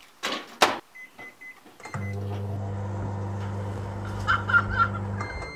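A microwave oven: two clatters, then three short keypad beeps, then the oven hums steadily for about three seconds while heating. It stops with a longer beep as the cycle ends.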